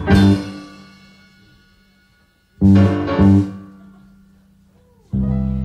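Live band playing the instrumental lead-in to a song. A chord is struck at the start and left to ring out and fade. Two more chord hits come about halfway through, a little over half a second apart, and fade too, and a held chord comes in near the end.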